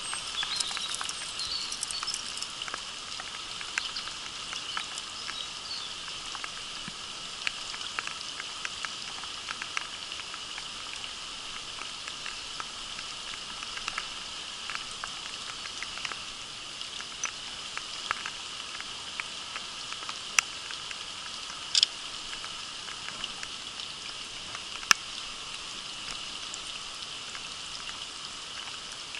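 Steady rain pattering, mixed with the rush of a shallow, rocky stream, with scattered small ticks of drops and a few louder sharp clicks in the second half.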